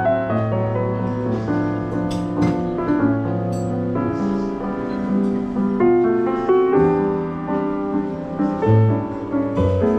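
Jazz piano trio music played by Yamaha's automated instruments: grand piano chords and melody over held upright double-bass notes, with a few light cymbal strokes.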